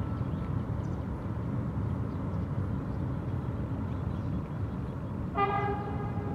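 Low, steady rumble of trains crossing a steel truss railway bridge. Near the end a horn sounds one steady note.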